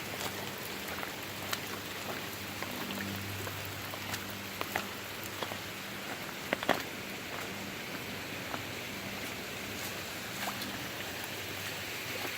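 Steady rain falling, with scattered louder drops hitting close by, a sharp pair about six and a half seconds in.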